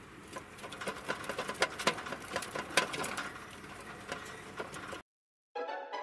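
Degu running in a plastic exercise wheel: quick, irregular clicks and patters of claws on the plastic and the wheel knocking. It cuts out about five seconds in, and music begins just before the end.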